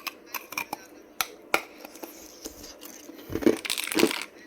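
Ice being bitten and crunched in the mouth: a few sharp cracks, then a loud run of crunching about three seconds in.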